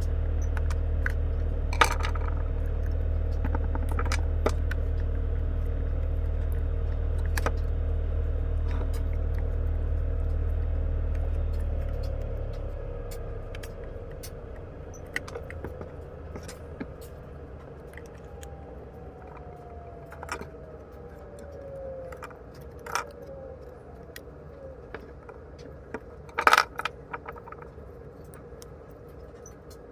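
Scattered clicks and clinks of small metal parts and tools being handled, the loudest cluster near the end. A steady low hum runs underneath and fades out a little under halfway through.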